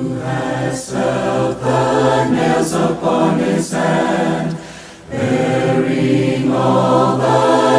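A congregation singing a hymn a cappella in parts, with mixed voices and no instruments, in two long sung phrases with a brief breath between them a little before five seconds in.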